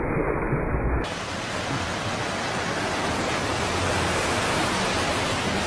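A steady, even hiss of noise that changes abruptly about a second in from a duller, muffled noise, and grows louder near the end.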